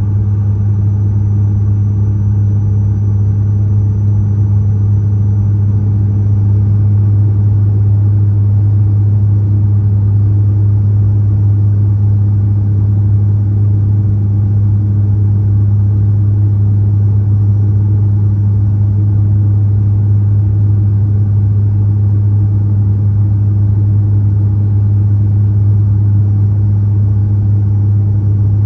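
Cabin drone of a De Havilland Canada Dash 8 Q400's turboprop engines and propellers: a loud, steady, deep hum with a faint high whine that dips slightly in pitch about six seconds in.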